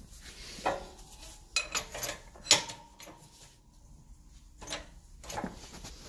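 A few sharp metallic clanks and knocks, about a second apart and the loudest about two and a half seconds in, from a 20-ton hydraulic bottle-jack shop press being worked as its ram presses a swaged wheel stud out of a brake drum and hub.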